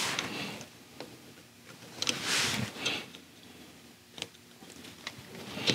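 Scattered light clicks and a short scraping, rustling noise as metal parts and hand tools are handled.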